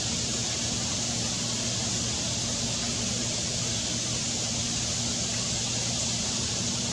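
Steady hiss of heavy rain falling on leaves, with a faint low hum underneath.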